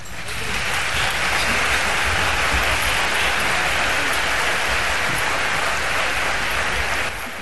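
Audience applauding after a concert band piece, swelling in over the first second, holding steady, and starting to die away near the end.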